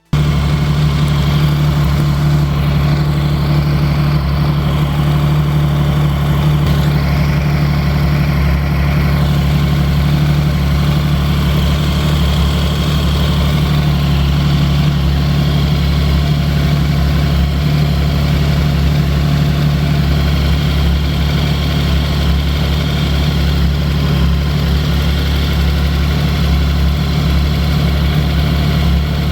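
Engine idling steadily at an even pitch, with no revving.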